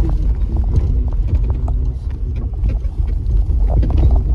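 Steady low rumble of a moving car on a mountain road, engine and tyres, with scattered small knocks.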